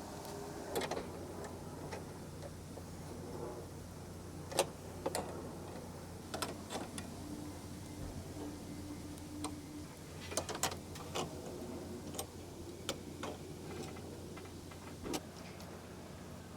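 Irregular light clicks and knocks, a dozen or so spread unevenly, from a wooden frame pattern and its wing-nut hardware being handled and adjusted against the inside of a wooden boat hull.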